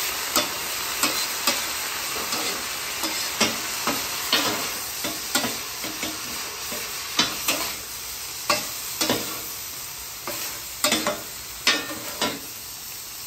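Pork belly, leeks and peppers sizzling on a hot flat-top griddle with freshly added sauces, the sizzle easing off slowly. A cleaver and a metal spatula toss the food, their blades scraping and clacking on the griddle top about once or twice a second.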